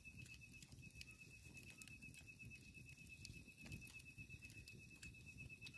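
Near silence with a faint, steady, high-pitched trill of night insects, and a few soft clicks.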